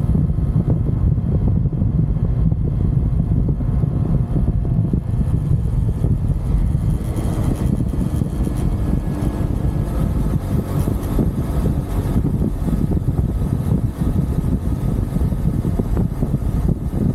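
A UM Renegade Commando 125 motorcycle's 125 cc engine running under way, heard from a handlebar-mounted camera, with heavy wind rumble on the microphone. The sound grows fuller in the middle range about seven seconds in.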